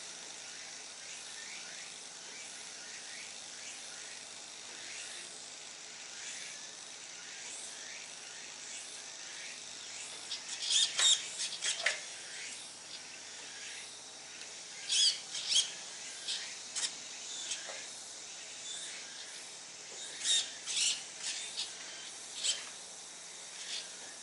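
Birds chirping in short clusters, about ten seconds in, again around fifteen seconds and again around twenty seconds. Under them runs a steady faint high-pitched insect drone.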